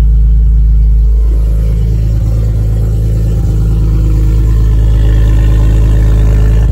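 BMW E46 M3's S54 3.2-litre inline-six, fitted with headers, idling steadily through its quad exhaust tips with a deep, even note. The owner calls it a very healthy engine.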